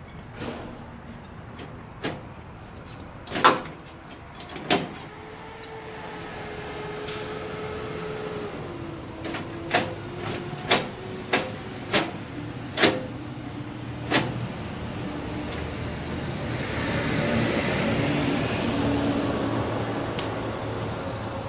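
Semi-trailer landing gear being cranked by hand, stiff and hard to turn: a series of sharp metallic clanks from the crank and gearbox, a few spread out at first, then a run of them about two a second. Near the end a steady mechanical rumble swells up.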